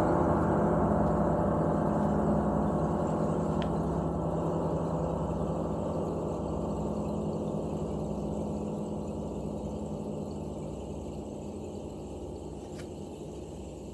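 A large hanging gong ringing out after a strike: a dense, low hum of many overlapping tones that fades steadily, the higher overtones dying away first.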